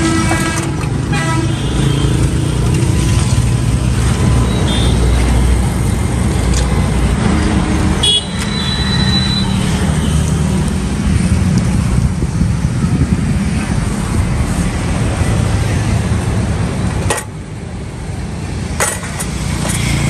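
Busy road traffic with engines running and vehicle horns honking. One horn sounds right at the start and a high-pitched toot comes about eight seconds in; the noise drops off suddenly near the end.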